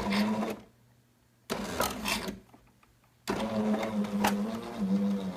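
Jura Ena 9 coffee machine's internal motor running in three bursts, the last and longest about two seconds: the machine working once its tray sensor switch is held closed.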